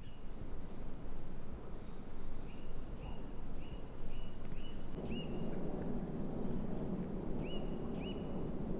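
A bird chirping over and over, short high notes about two a second, over a steady outdoor rushing background that grows louder about halfway through.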